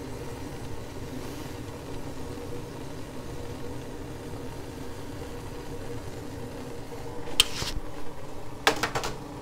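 Fried eggplant cubes slid off a paper towel into a pan of tomato sauce over a steady background hum. A few sharp clacks of a wooden spoon against the pan come near the end.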